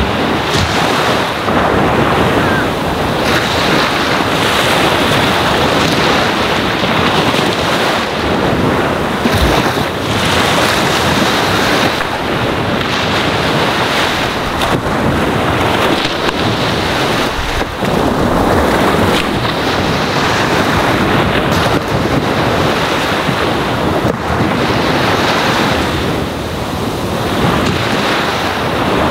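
Gentle ocean waves lapping and washing on a sandy shore, a continuous rushing that swells and eases every few seconds as each wave comes in and draws back.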